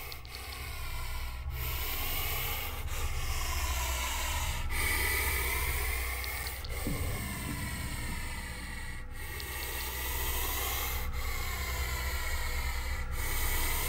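Puff adder hissing loudly with its breath, a long hiss of air repeated about seven times with only a short break between each.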